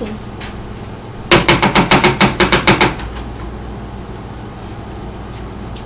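A brush scrubbed rapidly over an ear of shucked corn to clear off the silks: a quick, even run of brushing strokes, about seven a second, lasting under two seconds, starting about a second in.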